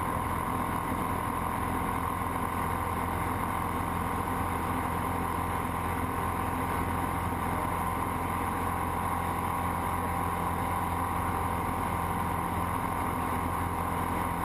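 Single-engine light aircraft's piston engine and propeller running steadily in flight, a constant drone heard inside the cockpit.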